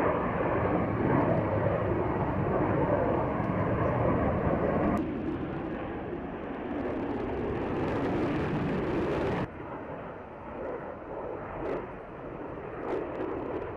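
F-35 fighter jet flying overhead, the steady rushing noise of its F135 turbofan engine. The noise drops abruptly in level about five seconds in and again at about nine and a half seconds.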